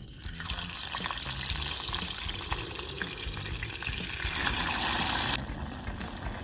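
Peeled garlic cloves frying in hot olive oil, an even sizzle that cuts off suddenly near the end.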